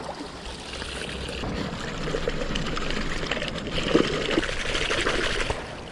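Hands swishing and rubbing in shallow river water at the bank, splashing, over the rush of the flowing river. The splashing gets busier and louder from about two seconds in.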